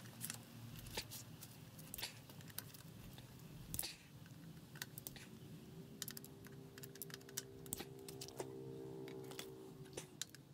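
Hand tools clicking and tapping against the parts of a Honda XL250 engine's crankcase and gearing as it is taken apart: a run of sharp, irregular metal clicks.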